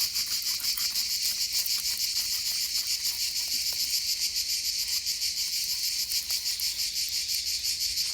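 Steady, pulsing high-pitched chorus of chirping insects such as crickets, rising and falling about three times a second.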